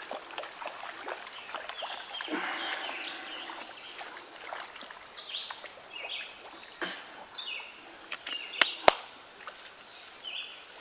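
Birds calling in short, repeated falling chirps, with a couple of sharp clicks about nine seconds in.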